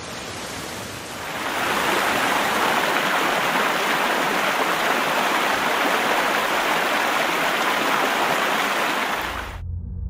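Heavy rain hissing, then from about a second in the louder, steady rush of a river in spate, muddy floodwater pouring in a torrent. It cuts off suddenly near the end, giving way to a low rumble.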